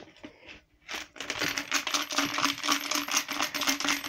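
Coins rattling inside a toy piggy bank as it is shaken: a rapid run of clinks starting about a second in.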